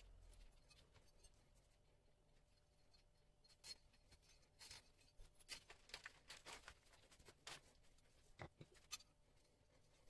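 Faint, irregular scuffs and clicks of a scooter wheel being handled and turned over by hand, the solid rubber tire and aluminium rim rubbing and tapping, with one sharper knock late on.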